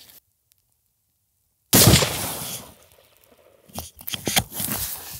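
A single rifle shot from a Wilson Combat NULA Model 20 in .308 Winchester, starting abruptly about a second and a half in and dying away over about a second. Scattered clicks and rustling follow near the end.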